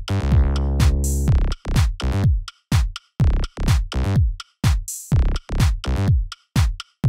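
Electronic music with a drum-machine beat: punchy kick drums that drop in pitch, with a held bass and synth chord about a second long near the start and again near the end.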